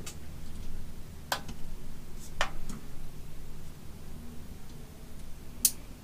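A few small, sharp clicks, four spread over several seconds, as hands fit a LiPo battery wire and heat shrink into a plastic QS8 connector, over a faint low hum.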